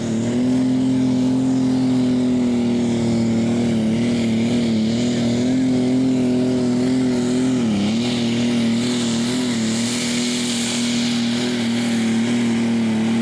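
Diesel engine of a John Deere super stock pulling tractor running flat out under load as it drags the sled, holding a steady high note. The pitch wavers a little and sags briefly about eight seconds in as the engine is loaded down, then comes back up.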